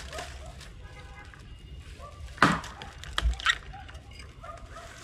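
A felling axe chops into a log once, a sharp blow about two and a half seconds in, followed by two lighter knocks within the next second. Faint voices talk in the background.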